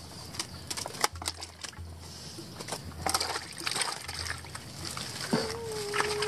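Wet mud squelching and splashing, with scattered slaps and clicks, as hands work through a mud-laden drag net of freshly caught pond fish. A single steady held tone starts about five seconds in.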